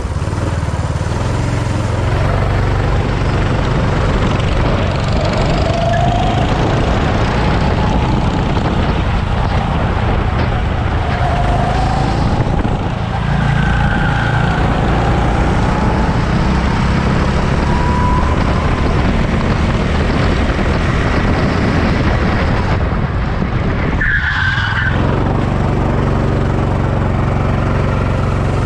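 Car driven hard on a race circuit: engine running steadily under heavy road noise, with several short tyre squeals.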